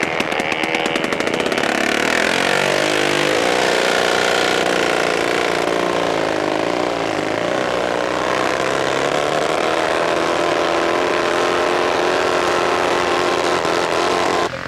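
Racing outboard motor on a small racing boat, popping with separate firing pulses at first, then rising in pitch about two seconds in as the boat accelerates away, and holding a loud, steady, high-revving note. It cuts off suddenly near the end.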